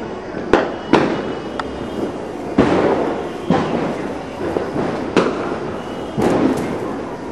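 A sparkler-like stick burning and throwing sparks: a steady fizz broken by about six sharp crackling pops at irregular intervals.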